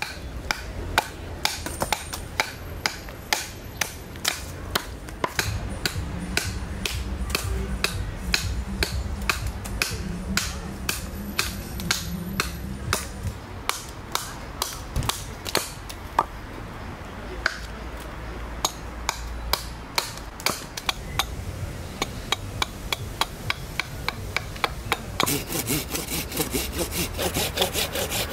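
Small carving axe chopping into a spalted sycamore cup blank on a chopping stump: a steady run of sharp, regular chops. Near the end, quicker and denser strokes of a large knife shaving the wood.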